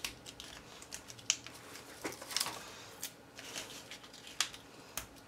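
Paper and foam tape being handled: a scatter of short, crisp clicks and crinkles at irregular intervals, as double-sided foam tape is put onto a paper card.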